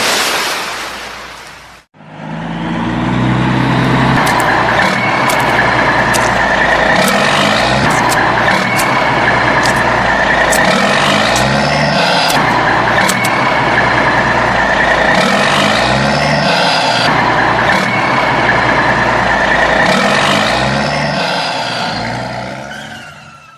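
Engine of a large road vehicle running steadily, after a hiss that cuts off sharply about two seconds in.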